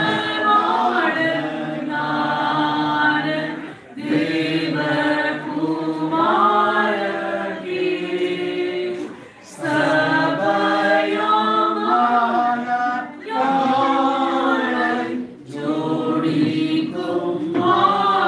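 Congregation singing a hymn together without accompaniment, in sung lines with short pauses between them.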